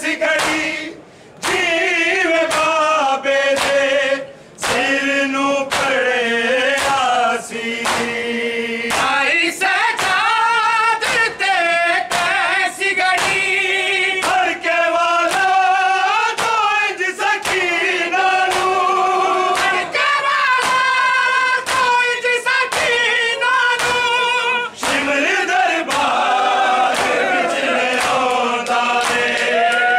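Men chanting a Punjabi noha (Shia mourning lament) together, with the crowd's hands striking bare chests in rhythm (matam), a bit more than one strike a second. The singing breaks off briefly about a second in and again near four seconds.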